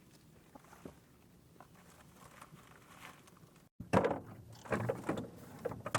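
Faint scattered clicks, then after a sudden cut a run of louder knocks and clattering, like gear being handled.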